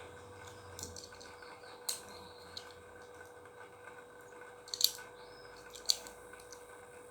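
A few scattered sharp clicks and light taps, the loudest nearly five seconds in, over a faint steady hum.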